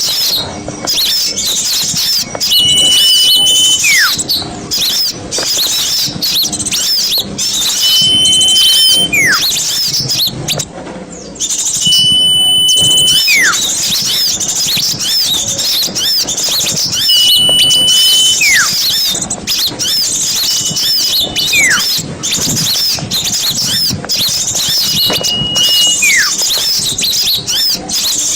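Small songbirds singing together in a dense mix of high chirps and trills. About every five seconds a held whistle note comes in, followed by a long whistle that slides steeply down in pitch.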